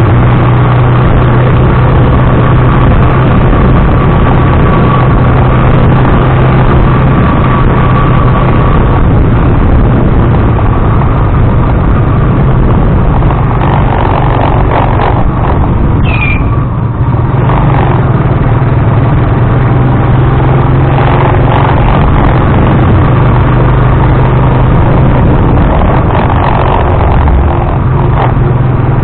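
Tricycle's engine running steadily with a loud drone, buried in heavy rumbling road, wind and vibration noise. A brief high-pitched squeal comes about halfway through.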